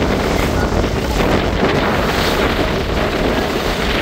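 Steady wind buffeting the microphone over a continuous rush of water and motor, as on a moving boat.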